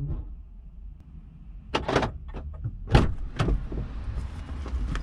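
Car doors being handled: several sharp clunks over a low steady rumble, the loudest about three seconds in.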